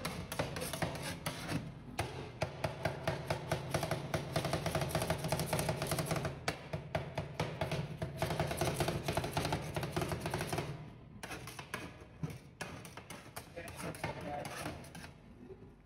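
Two metal spatulas rapidly chopping and scraping ice cream on a frozen steel pan, a fast run of sharp metallic clicks that thins out after about eleven seconds.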